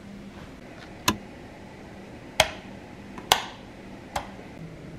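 Wall rocker light switches being flipped: four sharp clicks about a second apart, the third the loudest.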